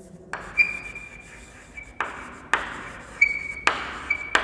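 Chalk writing on a blackboard: scratchy strokes with sharp taps as the chalk strikes the board, and a thin high chalk squeak three times.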